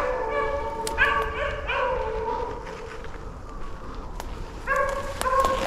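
A pack of beagles baying in overlapping voices while running a rabbit's track, having just picked the scent back up. The voices thin out for a couple of seconds in the middle and rise again near the end.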